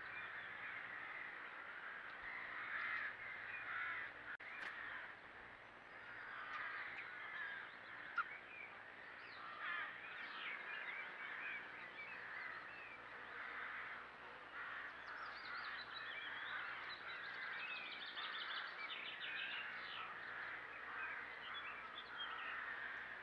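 Woodland birdsong with corvids cawing, many calls overlapping, and a rapid trill from another songbird about two-thirds of the way through. A sharp click sounds near five seconds in.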